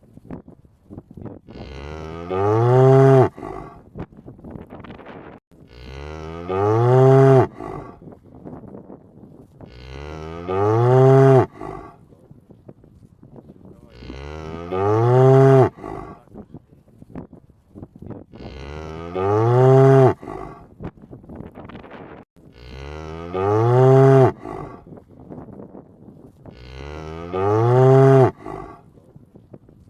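A cow mooing over and over: a long, low moo of about two seconds, repeated about every four seconds, seven times.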